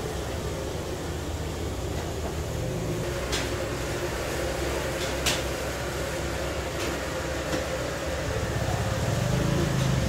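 Machine engine running steadily at a sawmill, a low rumble with a constant hum, with a few sharp clicks about three and five seconds in and the rumble swelling a little near the end.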